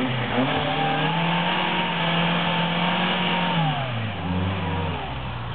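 Small Suzuki 4x4's engine revved hard as it climbs through deep mud: the revs rise about half a second in, hold high for about three seconds, drop, then rise and fall again briefly near the end.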